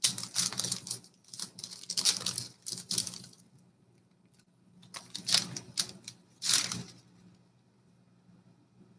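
Paper wrapper of a 1989 Bowman baseball card pack being torn open and crinkled, with cards shuffled in the hands. It comes as a run of crackly rustling for about three and a half seconds, then two more bursts after a short pause.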